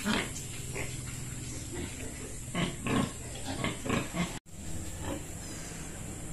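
Pigs grunting: a string of short, low grunts, busiest between about two and four seconds in, over a steady low hum.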